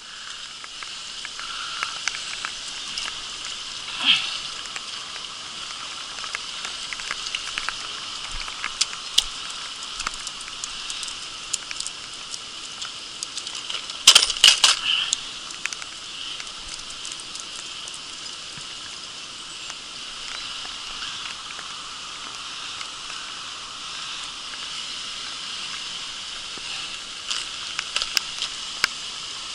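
Steady hiss of rain and stream water with scattered light ticks and crackles of raindrops, and a short cluster of louder knocks about halfway through.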